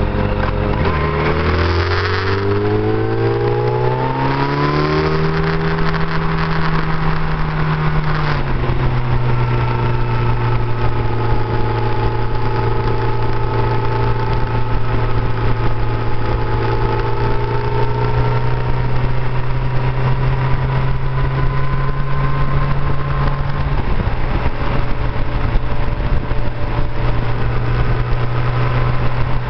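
Motorcycle engine heard from the rider's seat, accelerating with its pitch rising over the first few seconds, dropping at a gear change about eight seconds in, then running at a steady cruising speed. A constant rush of wind and road noise lies under it.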